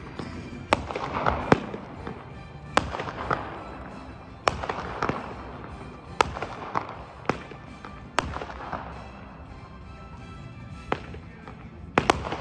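Shogun 'Country' 7-shot 200-gram aerial firework cake firing: a run of sharp shots about a second or two apart, with crackling between them.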